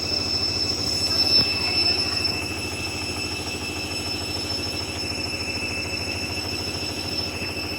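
Hoover washing machine spinning a load of bedding at speed, with a rapid, even low thumping from the drum under a steady high motor whine. The load is unbalanced. A single louder knock comes about a second and a half in.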